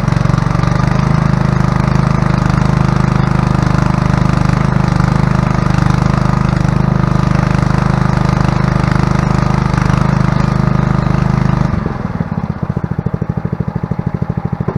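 Honda 21-inch commercial push mower's engine running steadily, freshly started from cold after a hard start and giving off a little smoke. About twelve seconds in, the sound changes to a slower, even throb and gets a little quieter.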